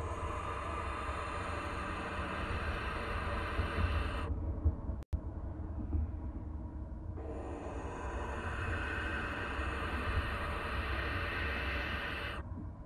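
Barn owl owlet giving its long, hissing food-begging call (the nestling 'snore') twice, each call about five seconds long, with a pause between. A steady low hum runs underneath.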